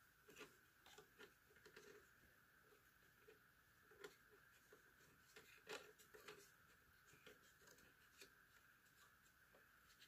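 Faint, irregular plastic clicks and taps from a router antenna being handled and screwed onto its connector on an ASUS GT-AX11000 router, over a low steady hiss.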